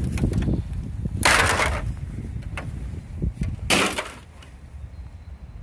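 Two crunching clatters of broken television casing and debris being shifted on dry leaves, one a bit over a second in and a shorter one near the middle, over a low rumble.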